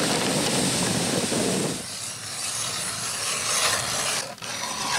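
A sled of ice-fishing gear dragged through deep snow. About two seconds in, a hand-cranked ice auger takes over, its blades scraping and cutting as it bores down through the lake ice.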